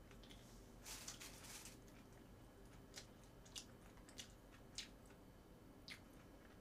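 Faint clicks of chopsticks against plastic takeout food containers, with a short rustle about a second in.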